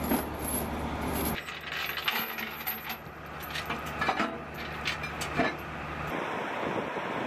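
Steel chains clinking and rattling as they are handled on a vehicle deck, with several sharp clanks through the middle of the clip. A steady low engine hum runs underneath and drops away near the end.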